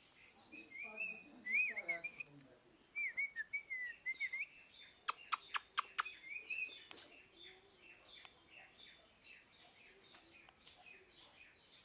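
Parrot chirping: short whistled chirps that wobble up and down in pitch, then a quick run of about five sharp clicks, followed by softer, rapid repeated chirps.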